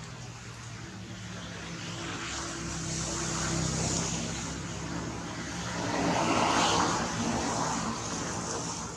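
A motor vehicle going past: a low engine hum builds over the first few seconds, then a broad swell of road noise peaks about two-thirds of the way through and fades.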